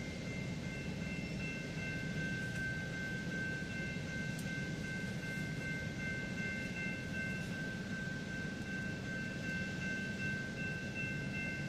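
Diesel locomotive running steadily, a low rumble with steady high-pitched tones over it.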